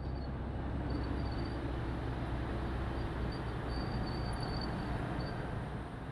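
A column of tracked tanks and military trucks on the move: a steady low engine rumble with faint high squeaks coming and going.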